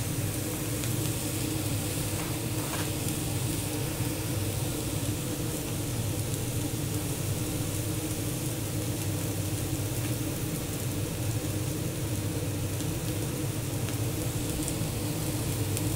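Oyster mushrooms frying in olive oil in a hot nonstick pan: an even sizzle, the crackle of moisture coming out of the mushrooms, over a constant low hum.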